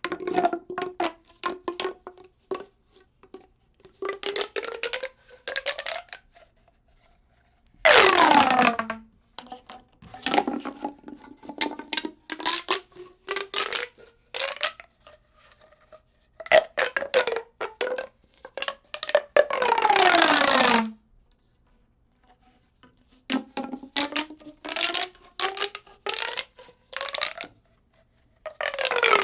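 Expanding ridged tube being slowly stretched and pushed back, its ridges clicking in runs whose pitch climbs over a few seconds. Three times, about a quarter of the way in, two-thirds of the way in and at the very end, it snaps together fast in a loud rush of clicks that falls in pitch.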